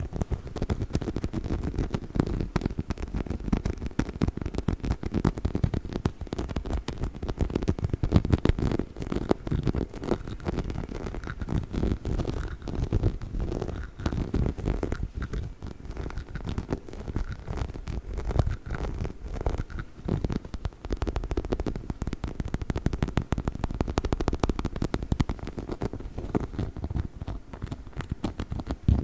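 Close-miked scratching and tapping on a chicken-shaped dog toy: a dense run of many quick, dull strokes with no squeak.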